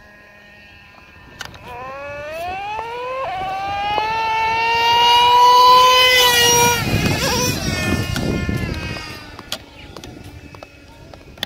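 Traxxas Revo 3.3 nitro RC monster truck's two-stroke glow engine accelerating flat out, its whine climbing steadily in pitch as it comes closer. It is loudest about six seconds in, drops in pitch as the truck passes, then fades away.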